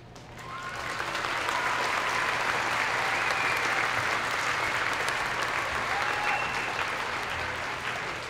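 Audience applauding at the end of an orchestra piece. The applause builds over the first second, holds steady, and eases near the end, with a few cheers over it.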